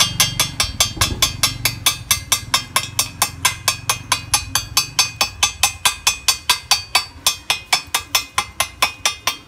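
Chipping hammer striking slag off a freshly laid stick-weld bead: a fast, even run of sharp metallic taps, about five a second, each with a short ring.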